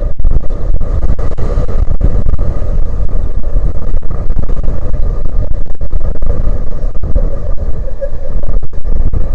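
Strong wind buffeting the microphone: a loud, fluttering low rumble with brief dropouts.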